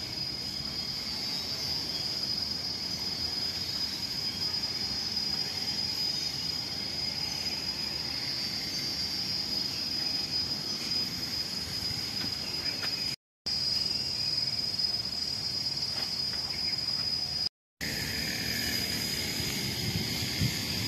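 Insects droning steadily on one high, even pitch, over a low rumbling outdoor background; the sound drops out briefly twice.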